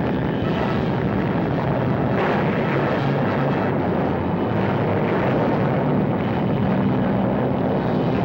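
Steady, noisy roar of a nuclear test blast wave and its dust-laden wind, on an old newsreel soundtrack with the top end cut off.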